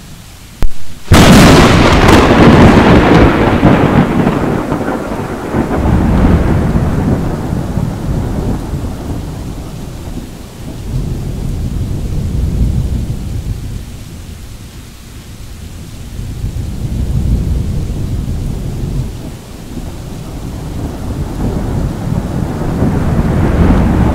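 Thunder: a sudden sharp crack about a second in, right after a brief gap, then a long low rumble that fades and swells again several times, building toward the end.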